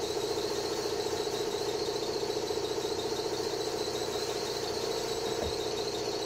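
Compressed air being blown into a 2018 Toyota Corolla's cooling system to push the coolant out of the engine block through the thermostat passage: a steady whistling whine with a fast, even flutter.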